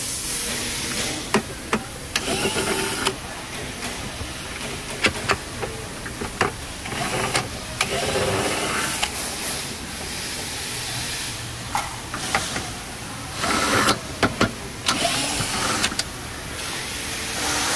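Scattered clicks and knocks of rowing machine parts and tools being handled, over a steady hiss. Three short rising whirs come about two, eight and fifteen seconds in.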